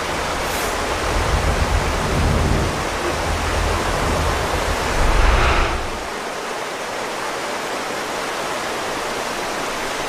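Steady rushing water, like a waterfall, a loud even hiss. A deep rumble lies under it for the first six seconds, swells about five and a half seconds in, then stops, leaving the hiss alone.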